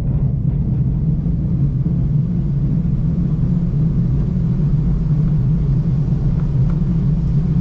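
V/Line passenger train running along the track, a steady low rumble with no change.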